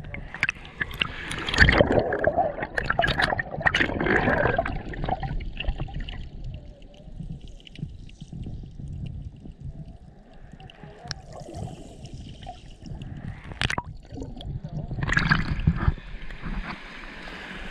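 Shallow seawater heard through an action camera held underwater: muffled gurgling and bubbling with clicks, loudest in bursts over the first few seconds and quieter after. Near the end the camera breaks the surface with a splash, and an open-air wash of small waves follows.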